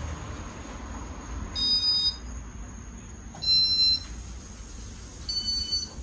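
Three short electronic beeps, each at a different high pitch, about two seconds apart, over the low steady hum of a running Casablanca Spirit of Saturn ceiling fan.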